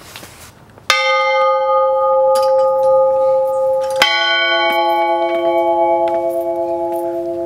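Two rope-pulled church bells hanging on a wooden post frame. One bell strikes about a second in and rings on, slowly fading. A second, lower-pitched bell strikes about four seconds in, and the two ring together until the sound cuts off abruptly.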